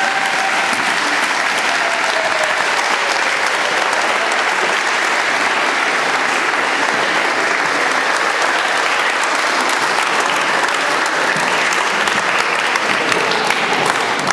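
Audience applauding, a loud, steady clapping from a room full of people.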